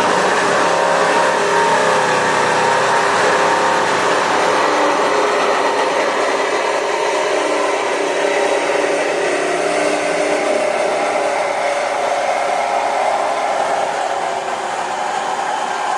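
Steady, loud whir of an electric motor and fan, with a few humming tones that drift slightly in pitch.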